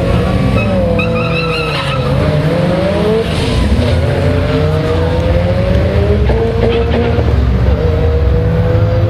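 Two drag cars accelerating hard down the strip side by side, their engines revving up through the gears, with the pitch climbing and dropping back at each shift.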